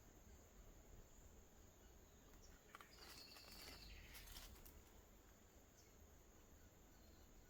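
Faint bush ambience: a steady high insect drone, with a brief louder burst of sound about three seconds in that lasts just over a second.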